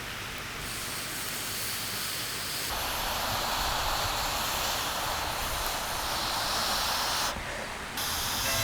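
Steady hissing noise that turns louder and brighter about three seconds in and dips briefly near the end.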